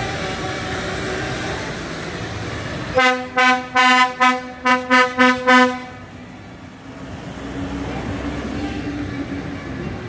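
Vehicle horn sounding a rapid run of about nine short toots, about three seconds in, over the steady engine noise of vehicles driving past in slow procession.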